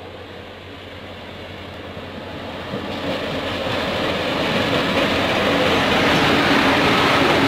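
Diesel-hauled train approaching on the line, its rumble growing steadily louder.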